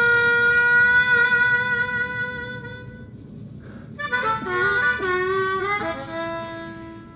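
Harmonica playing: one long held note for about three seconds, then after a short pause a quicker phrase of sliding, changing notes that settles on a lower held note.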